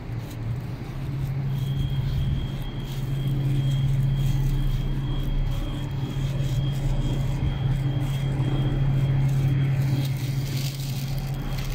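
Steady low mechanical hum in a large underground bus hall, with a thin, steady high whine joining about a second and a half in.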